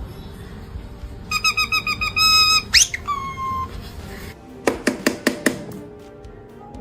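Parrot mimicking electronic sounds: a quick run of beeps, a fast rising whistle and a short tone, then a rapid series of clicks.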